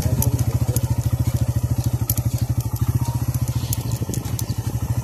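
Motorcycle engine running steadily at low speed with a rapid, even pulse, the bike rolling over a stony dirt road with faint clicks of gravel under the tyres.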